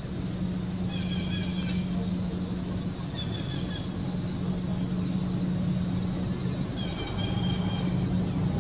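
A steady low hum runs throughout, with a few short high chirps about one, two, three and seven seconds in.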